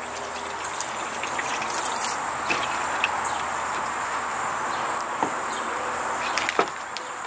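Water poured from a plastic bowl into a plastic bucket, a steady rushing splash for about five seconds, then two light knocks as the bowl is set down on the wooden table.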